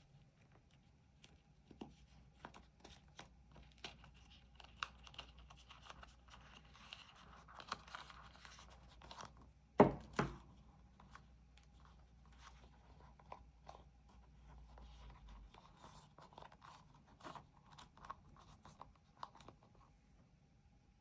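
Hands handling packaging and small items: scattered rustling, scraping and light clicks, with a sharp double knock about ten seconds in.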